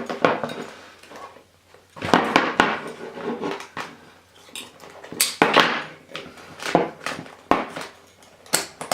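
Irregular metal clinks, knocks and rustles as a divers' tool bag is handled and metal carabiners clipped to it are moved about, in several short clusters.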